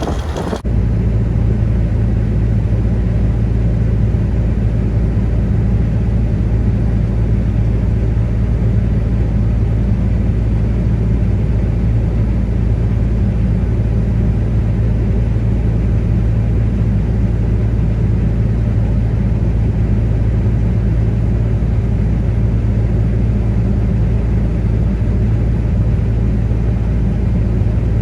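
Heavy diesel farm machinery engine running steadily, a constant deep rumble with a low hum and no change in speed.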